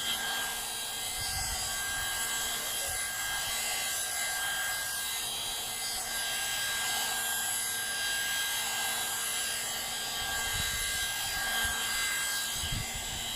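Hot-air hair dryer brush running steadily: a fan whir with a few fixed high whining tones from its motor, and a few low bumps along the way.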